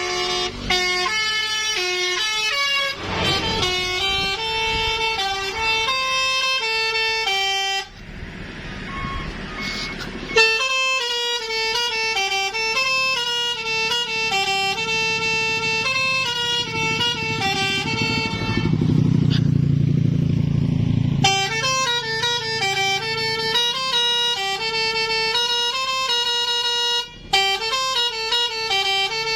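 Basuri telolet multi-tone air horn playing a fast melody of stacked horn notes. The horn stops for about two seconds some eight seconds in, where a hiss is heard instead.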